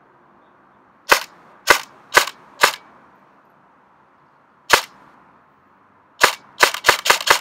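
LCT AK-74 airsoft electric gun firing single shots: four about half a second apart, one more a couple of seconds later, then a quick string of five near the end.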